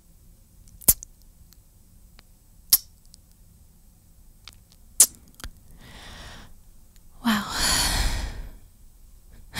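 A woman's close-up kissing sounds: four sharp, wet lip smacks spread over the first five and a half seconds, then a soft breath and a long breathy sigh as she says "wow".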